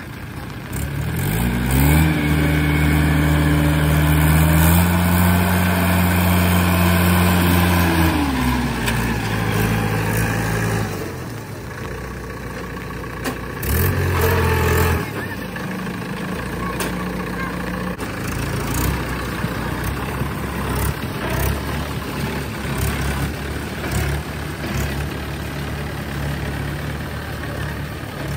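Tractor diesel engine revved hard under load for about six seconds, then dropping back to a steady lower run, with one more short rev about halfway through. This is typical of a tractor straining to haul a heavily loaded sugarcane trolley out of mud.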